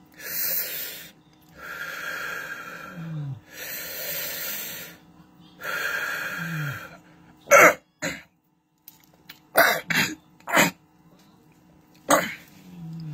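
A man blowing breath out hard through pursed lips four times, each long breath ending in a short falling groan. From about seven seconds in come a series of sharp, loud coughs and hacks, as if to bring something up.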